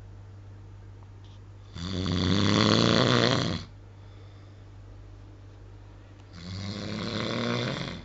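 A man snoring loudly: two long snores about four and a half seconds apart, the first louder.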